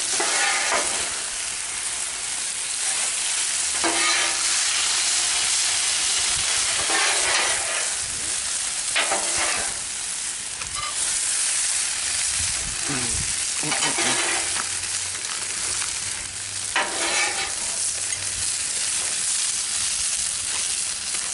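Chicken, noodles and vegetables in hoisin and soy sauce sizzling steadily on a Blackstone flat-top griddle. The stir-fry is stirred and scraped every few seconds.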